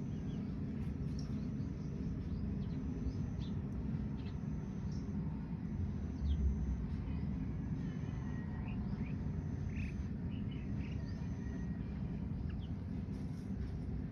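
Small birds chirping now and then, short quick calls over a steady low rumble of outdoor background noise.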